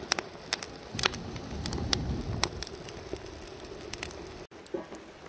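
Irregular crackling and popping over a steady hiss, with a low rumble for a couple of seconds. The sound breaks off abruptly about four and a half seconds in and goes on more quietly.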